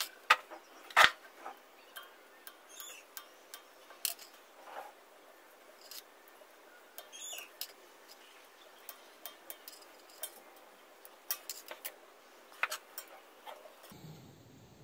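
Scattered small clicks, taps and short scrapes from hands fitting a rubber gas hose onto a stove's gas valve and working its hose clamp with a screwdriver. The sharpest clicks come at the start and about a second in.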